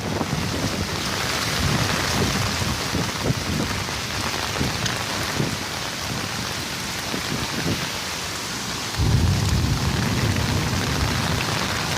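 Steady rain falling on water and ground, with a low rumble coming in about nine seconds in.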